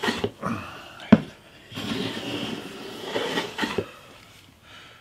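Metal bench plane being worked along a Brazilian rosewood fretboard: a sharp knock as it is set down, another about a second in, then a rasping stroke lasting about two seconds as it takes a thin shaving, with a couple of knocks near its end.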